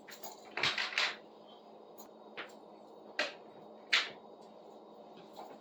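Four or five short scuffing noises, scattered a second or so apart, over a faint steady hum.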